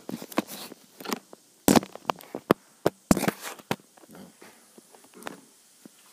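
Handling and movement noise: an irregular run of sharp clicks and knocks, thickest in the first few seconds and thinning out after about four seconds.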